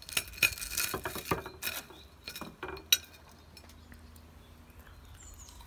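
Metal knife and fork scraping and clinking against a ceramic plate while cutting a fried fritter, with one sharper clink about three seconds in; after that it goes much quieter.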